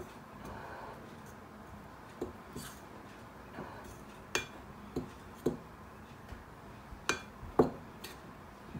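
Metal spoon stirring flour in a glass mixing bowl: about ten irregular clinks of the spoon against the glass, the loudest near the end.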